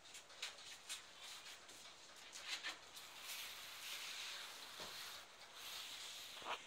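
Puppies' claws clicking and scratching on a wooden floor as they scuffle and play, a string of faint irregular ticks.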